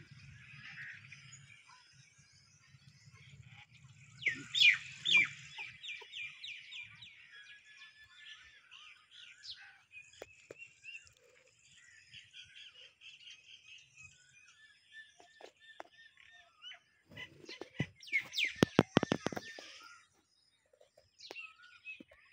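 Birds calling: two loud runs of rapid repeated notes, one about four seconds in and a louder one late on, with softer chirping between.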